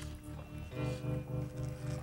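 Background music with low held notes, changing to a new chord a little under a second in.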